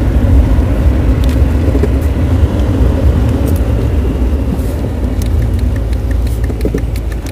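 Steady low rumble of a car driving, heard from inside the cabin, with scattered faint ticks over it.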